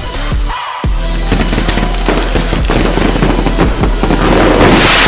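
Fireworks crackling and banging, a dense rattle of sharp pops that starts about a second in and builds, mixed with electronic music.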